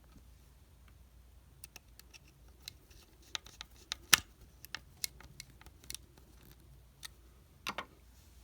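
Scattered small clicks and taps from a walkie-talkie's parts being handled during reassembly, with one sharper click about four seconds in.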